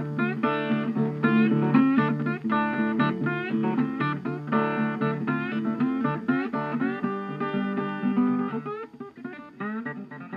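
Background music led by a plucked acoustic guitar, getting quieter near the end.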